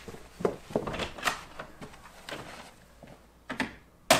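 Several light knocks and clunks of a door being handled, then a door shutting with a sharp bang near the end.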